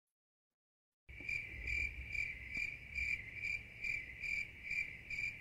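Compressor nebulizer running: a low steady motor hum with a high, chirping whine that pulses a little over twice a second. It cuts in abruptly about a second in, out of dead silence.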